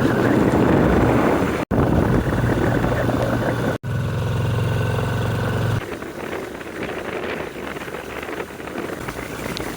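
A vehicle engine running steadily, broken off abruptly twice. About six seconds in it gives way to quieter rumbling wind noise on the microphone.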